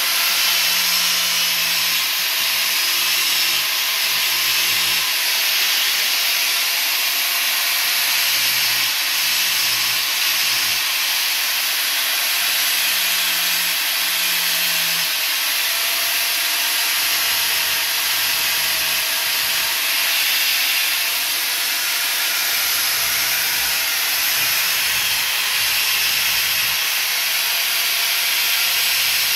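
Handheld angle grinder running steadily, its small stone grinding the cutters of a 3/4-pitch chainsaw chain: a continuous high hiss of grinding over a faint steady motor whine.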